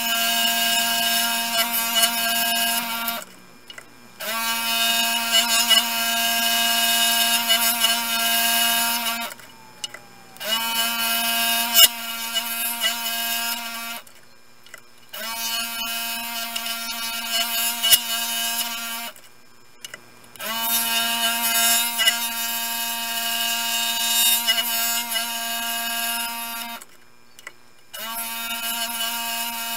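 Scroll saw running and cutting a thin workpiece, a steady mechanical hum with a buzzy edge. It runs in stretches of a few seconds, each ended by a short stop before it starts again.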